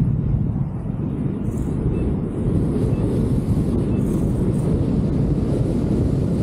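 Wind buffeting the camera microphone of a paraglider in flight: a steady low rumble of rushing air.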